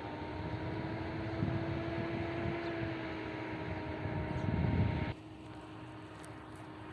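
A motor or engine running with a steady hum over a hiss, rising slightly in pitch midway and louder just before it cuts off abruptly about five seconds in, leaving a fainter hum.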